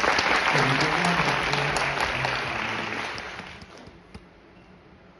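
Audience applauding, loud at first, then fading away after about three and a half seconds.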